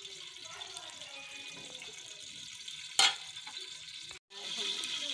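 Steady hiss of a wood fire burning in a clay stove under a cooking pot. A single loud knock comes about three seconds in, and the sound cuts out briefly just after four seconds.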